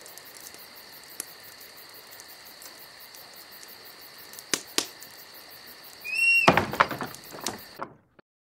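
Crickets chirping steadily. Over it come two sharp clicks about halfway through, then a short rising creak and a louder stretch of rattling and scraping as the clasp and lid of a small metal-clad chest are worked. All of it cuts off suddenly shortly before the end.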